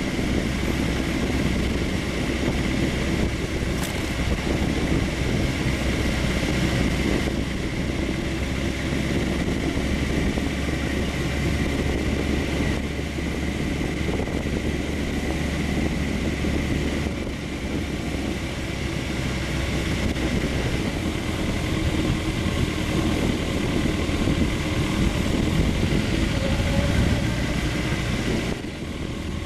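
Motorcycle engine running steadily at low speed while the bike rides between lines of traffic, with wind noise over the microphone.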